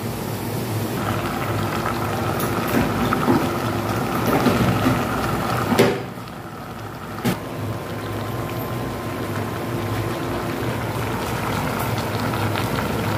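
Oil sizzling in a frying pan with some scraping as fried fish is lifted out, then after a sudden change about six seconds in, a steady bubbling hiss from a pot of vegetables cooking on the gas stove, with one click soon after.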